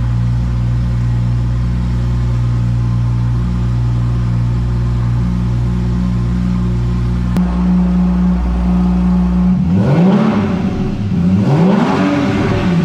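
Porsche engine with an aftermarket exhaust idling with a steady low note; about seven seconds in a click comes and the note shifts, and in the last three seconds the engine revs up and falls back twice.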